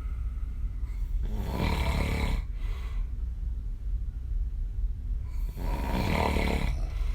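A woman snoring open-mouthed while lying on her back: two long snores on the in-breath, each about a second long and about four seconds apart, with quieter breathing between them.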